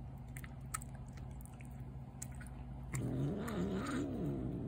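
A cat's low, wavering yowl starts about three seconds in and lasts about two seconds. It is a warning caterwaul at another cat crowding in at the food bowl.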